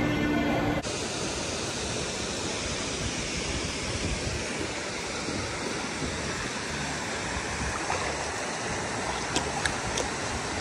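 Steady rushing of swimming-pool water, with a few light splashes near the end as feet move in the water.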